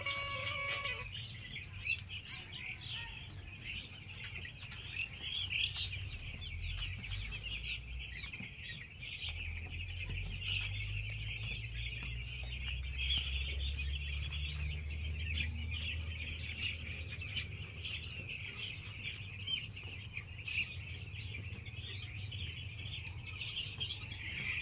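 Dense, continuous chorus of hundreds of week-old chicks peeping, with a low steady hum underneath.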